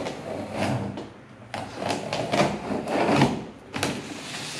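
Cardboard box and packing of a pedestal fan being handled and opened, with a series of sharp knocks and short scraping and rustling noises as the contents are moved.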